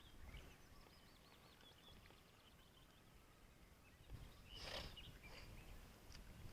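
Near silence outdoors: faint birdsong trilling in the first couple of seconds, and one brief rustling noise about four and a half seconds in.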